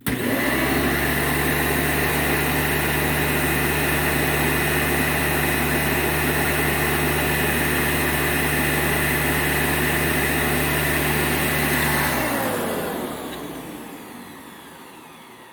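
Hoover Dimension upright vacuum cleaner (U5209-930) switched on and running steadily with a high whine over a low hum. About twelve seconds in it is switched off and the motor winds down, falling in pitch over a few seconds.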